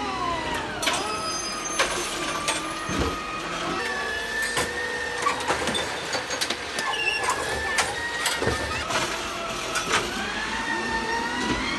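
Automated side-loading garbage truck working its arm to lift and tip a curbside recycling cart: a steady, slowly wavering whine with scattered clanks and knocks.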